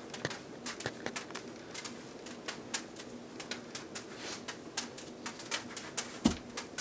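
Juggling balls landing in the hands, soft pats about three or four a second in a steady cascade, with a louder thud near the end.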